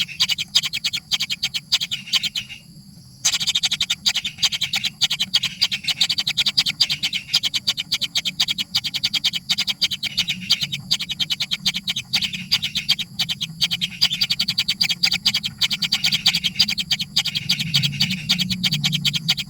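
Young birds calling continuously with rapid, dense high-pitched chirps, many a second, as chicks do when begging for food. The calls cut out briefly about three seconds in.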